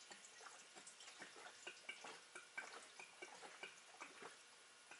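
Diesel fuel poured from a plastic jug into the dry fuel filter housing of a DD15 truck engine, filling it before priming: faint dripping and trickling with many small plops.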